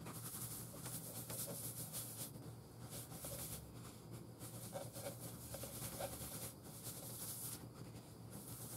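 A cloth pad rubbing wax polish by hand over a wooden bowl's surface, in soft, irregular, scratchy wiping strokes. A faint steady low hum lies under it.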